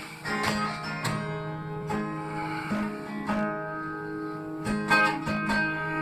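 Acoustic guitar strumming an instrumental break in a country song, with no singing. Fresh strums come every half second to a second over low notes that ring on.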